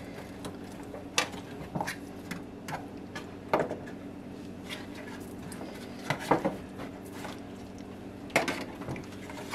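Metal fork and spatula scraping and clinking against a disposable aluminium foil roasting pan as baked Cornish hen halves are turned over: a scattering of separate knocks and scrapes, the sharpest about 6 and 8.5 seconds in, over a steady low hum.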